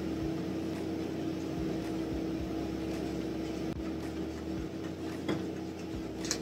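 Steady low electrical hum of room tone, with a few faint soft ticks scattered through it.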